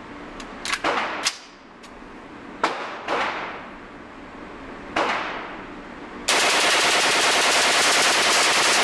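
Several separate gunshots ring out, each with a long echo. About six seconds in, a Heckler & Koch G36KE 5.56 mm rifle starts firing full-auto in one long unbroken burst, a 30-round magazine dump, in an echoing indoor range.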